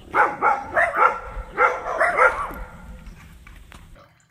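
A small dog barking: two quick runs of about four short barks each, then fading out.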